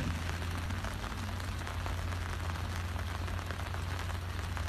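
Steady rain, with many small drops tapping on the umbrellas held overhead, over a steady low rumble.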